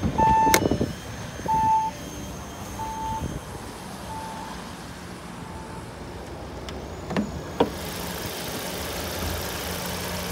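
Audi A3's door-open warning chime, a single soft tone repeating about every second and a half and fading away, with a sharp knock just after the start. About seven seconds in come two sharp clicks as the hood is released and lifted, over the engine idling quietly.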